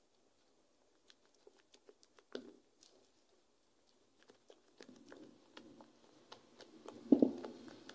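Silicone spatula stirring cocoa into thick cake batter in a glass bowl: scattered soft clicks and squelches against the glass, getting busier after about five seconds. A knock about two seconds in and a louder one near the end.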